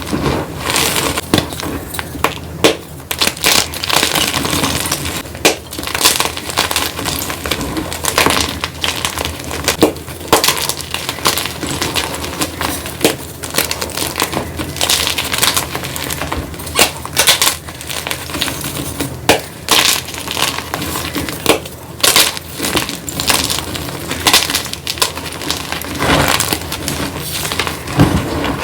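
Gym chalk being crumbled, a dense, continuous run of crunchy, glassy cracks and crumbles with frequent sharp snaps.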